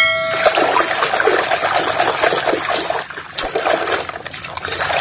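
Muddy water splashing and trickling in a plastic basin as a toy truck is swished and scrubbed by hand, an uneven run of small splashes. A short ringing tone sounds at the very start.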